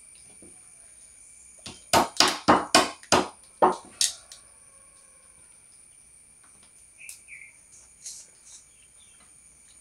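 A heavy curved knife knocking against a cooked crab's shell to crack it: about eight quick, sharp knocks in two seconds, then a few fainter clicks later.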